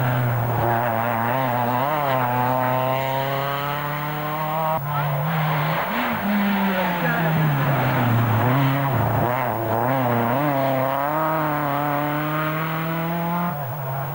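Small hatchback rally cars on a tarmac stage, engines revving hard and falling back through gear changes as they pass one after another. The sound changes abruptly about five seconds in and again near the end as a new car comes by.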